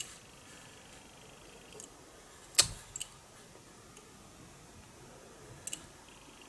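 Scattered sharp metal clicks and knocks from a toolmaker's vise and measuring gear being handled on a surface plate, with one louder knock about two and a half seconds in.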